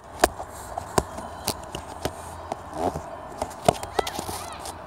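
Irregular sharp knocks and clicks, about two a second, over a steady outdoor background hum, with a few short bird chirps near the end.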